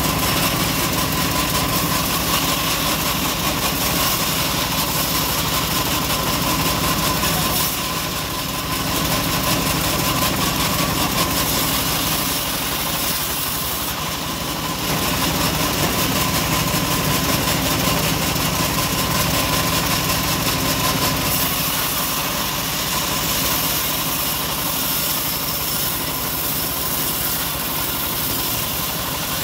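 Homemade band sawmill running steadily, its blade sawing through a teak log, a continuous machine noise with a steady high tone. The level dips slightly about 8 and 14 seconds in.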